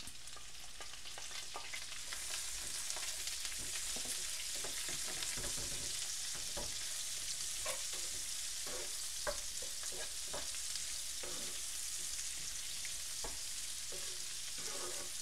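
Sliced onion, green chillies and curry leaves being sautéed in hot oil with ginger and garlic: a steady sizzle that grows louder about two seconds in, with scattered knocks of the spatula against the pan as it is stirred.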